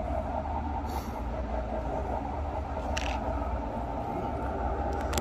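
Steady hum and rumble of model trains running on a model railroad layout, with two faint clicks about one and three seconds in.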